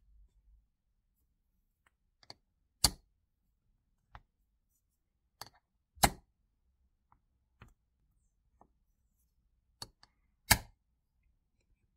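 Sharp metal clicks and knocks from a punch-and-die set as the steel punch is seated in the die plate and struck, punching small discs out of plastic sheet for bolt heads. Three loud strikes, about three to four seconds apart, stand out among fainter clicks.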